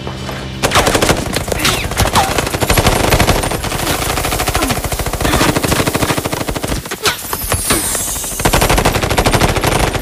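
Automatic rifles firing long, rapid volleys that begin under a second in and run almost without a break, easing briefly about seven seconds in.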